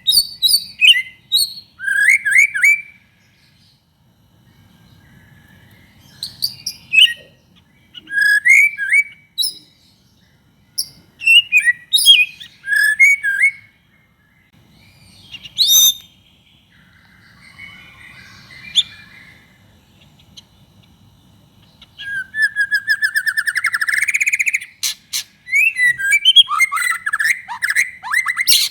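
White-rumped shama singing: phrases of clear whistles that glide up and down, separated by short pauses, with a harsh scratchy phrase midway. Near the end comes a fast rattling trill, then a run of loud, quick whistled notes.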